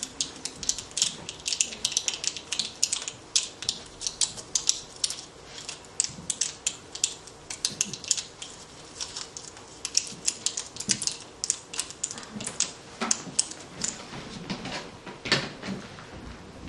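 Many overlapping small clicks and ratcheting ticks, several a second and uneven, from small handheld objects that several people are working with their fingers. A single louder knock comes near the end.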